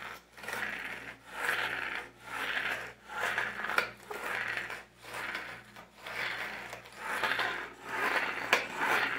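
Homemade plastic-bottle spinning toy worked by pulling its string, which turns the bamboo skewer. Each pull gives a rasping rub, about one a second.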